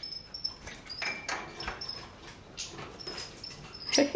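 Red siskins calling: a series of short, thin, high chirps a few tenths of a second apart, with a louder burst of calls near the end.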